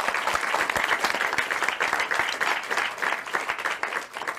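Applause, many hands clapping steadily, tapering off near the end.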